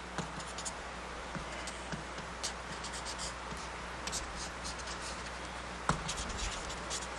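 Light, irregular scratching and clicking over a steady low hum and hiss, with a slightly louder knock about six seconds in.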